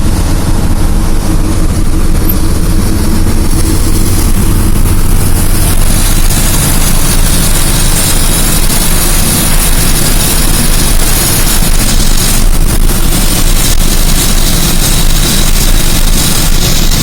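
Heavy engine running steadily with a low, even drone and no change in pitch.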